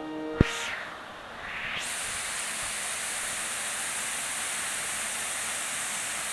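Very heavy rain falling, a steady hiss that builds to full strength about two seconds in. A single sharp click sounds just under half a second in.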